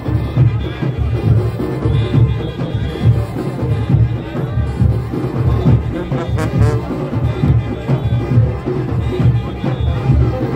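Junkanoo group playing live: goatskin drums pounding a driving beat, with cowbells clanging and brass horns, sousaphones among them, blaring over it.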